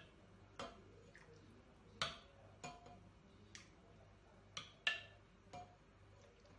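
Faint, scattered light clicks and taps of kitchen utensils against pots or dishes, about seven over a few seconds, the sharpest about two seconds in and near five seconds.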